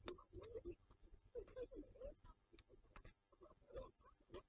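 Near silence with faint, scattered clicks and soft taps of tableware and chopsticks being handled at a meal.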